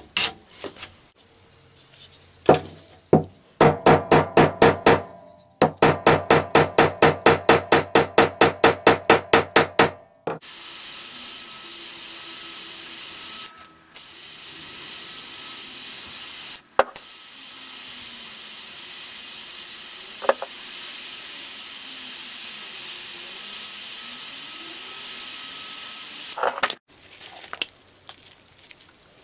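A hand file rasping on the steel hatchet head, about three strokes a second, stopping about ten seconds in. Then a small handheld rotary tool runs steadily, sanding a hole in the wooden hatchet handle, with a few sharp clicks, until it stops near the end.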